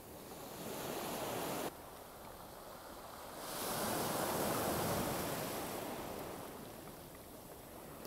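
Small waves washing up onto a shore of rounded pebbles. The surf swells about halfway through and fades as the water draws back.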